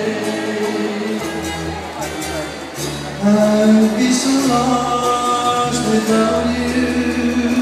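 Music with singing, long held notes over a steady bass line; it gets louder about three seconds in.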